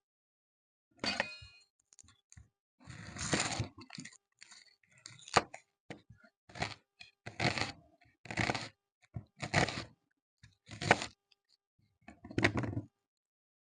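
A knife cutting through a crunchy raw vegetable, about ten slow cuts roughly a second apart, each a short crunching crack.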